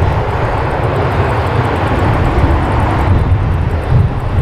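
Jet engine noise of a Boeing 757 rolling out down the runway just after landing: a loud, steady rushing roar with a heavy low rumble.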